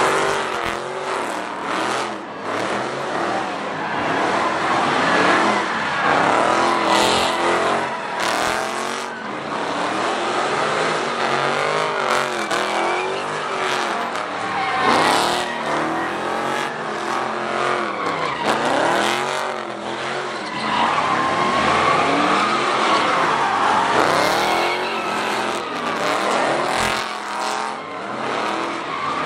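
Cars doing donuts: engines revving up and down again and again over continuous tyre squeal as the rear tyres spin and smoke on the pavement.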